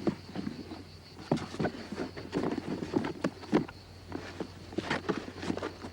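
A run of irregular soft knocks and scuffs, like footsteps and handling, over a steady low hum.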